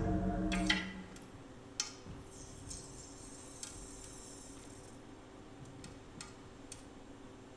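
A low sustained tone cuts off about a second in. After that there is only quiet stage room tone: a faint steady hum and a few faint scattered clicks.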